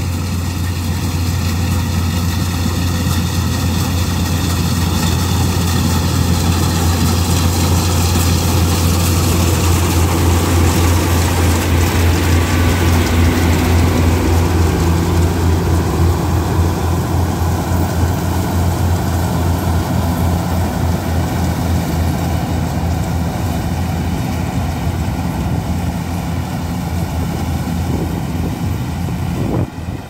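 Kubota DC-95 rice combine harvester running under load as it cuts and threshes: a steady, loud diesel engine drone with the whirring of the header and threshing machinery.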